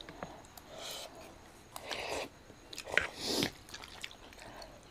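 Close-up mouth sounds of people eating noodles: soft chewing and biting, a few short bouts about a second apart, with light clicks of forks and spoons in metal bowls.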